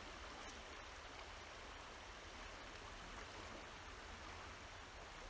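Steady rush of the Jordan River's current, with light rain falling.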